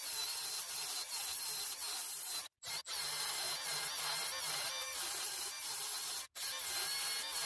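Milwaukee M12 Fuel 3-inch cut-off saw converted to a 3/8 x 13 in. belt sander, running steadily with its abrasive belt grinding against sheet steel to cut out a spot weld: a rasping grind over a faint high whine. The sound cuts out abruptly for an instant three times.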